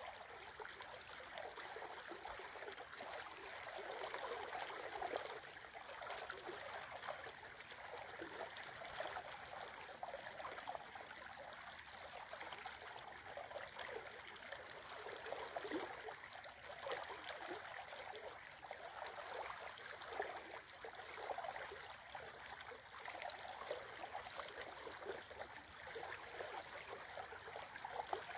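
Shallow river flowing over a riffle and around a fallen log: a steady sound of running water.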